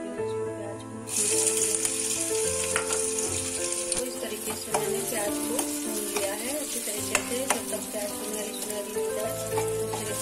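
Chopped onions hit hot ghee in a metal kadai and start sizzling loudly about a second in. The sizzle carries on steadily, with a ladle scraping and clicking against the pan as the onions are stirred.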